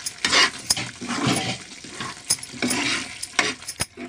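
Steel spatula stirring a thick cooking tomato masala in a non-stick kadai: wet, squelching scrapes in uneven strokes, with a few sharp taps of the spatula against the pan.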